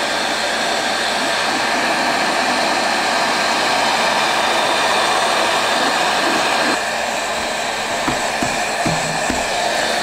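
Handheld electric heat gun blowing steadily, softening vinyl wrap so it can be worked onto the helmet's curves. It gets a little quieter about seven seconds in, with a few soft knocks near the end.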